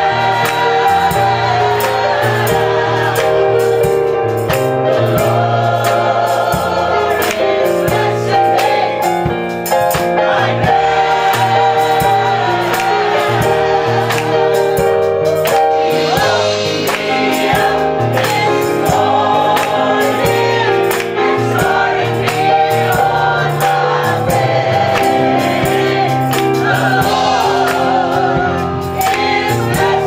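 Gospel choir of men and women singing together, with instrumental accompaniment: a low bass line and a steady beat.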